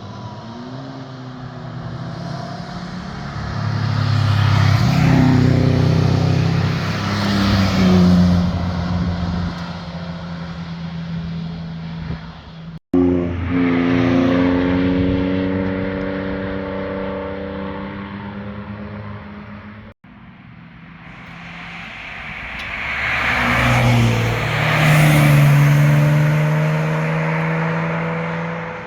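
Sports cars driving past one after another, engine and exhaust note swelling as each approaches and fading as it goes away. Three separate pass-bys with two abrupt cuts between them, the loudest near the middle and near the end.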